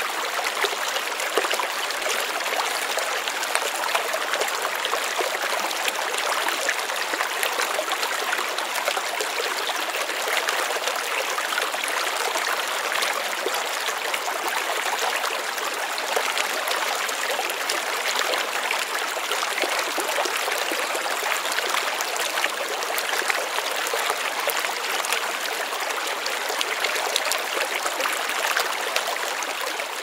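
Shallow stream running steadily over rocks and stones, a continuous rush and babble of water.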